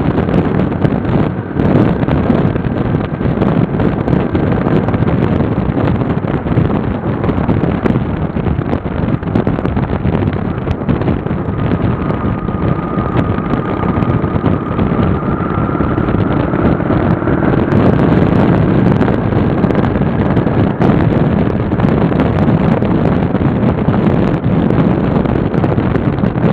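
Motorcycle cruising at highway speed: steady engine and road noise heavily mixed with wind rushing over the microphone of a camera riding on the bike.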